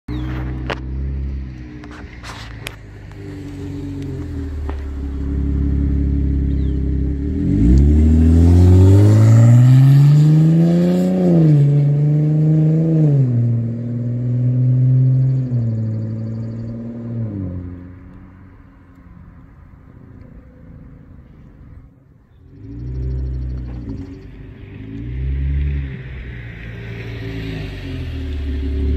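Chevrolet Camaro 3.6-litre V6 through a Magnaflow Race Series axle-back exhaust: running steadily, then accelerating hard about eight seconds in, its pitch climbing and dropping back at three gear changes as it pulls away and fades. It then runs close by again with two quick throttle blips before settling to a steady run.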